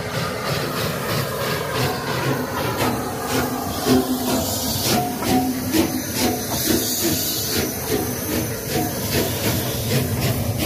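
Rebuilt Bulleid West Country class three-cylinder steam locomotive 34046 Braunton passing close by with its train: steam hiss over a steady run of regular beats, then the coaches rolling past near the end.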